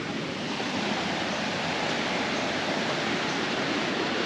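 Steady rushing water of a waterfall and its feeder stream, an even, unbroken rush that grows a little louder about a second in.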